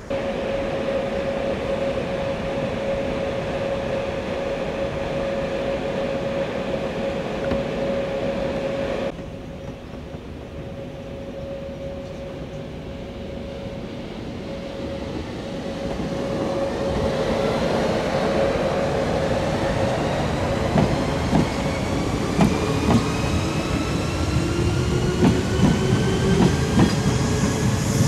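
JR 381 series limited express electric train: first a steady hum as it stands at the platform, then, after a break, it accelerates past with its motor whine rising in pitch and the wheels clacking over rail joints.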